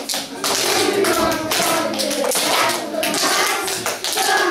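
A group of young children singing together, clapping their hands in a steady rhythm as they sing.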